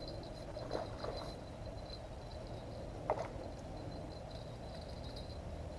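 Brief splashes of a hooked carp thrashing at the landing net in the river, three in all, the loudest about three seconds in, with a steady high trill underneath.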